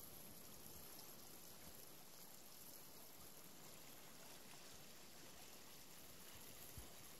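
Faint, steady rush of stream water running over stones and shallow rapids, with a soft low bump near the end.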